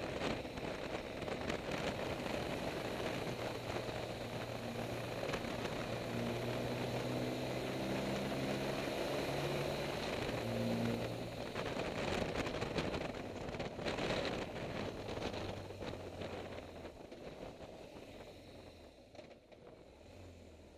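Motorcycle engine running under way with wind noise on the microphone. The engine pitch climbs in steps through the middle, and the sound falls away over the last few seconds as the bike slows toward a hairpin.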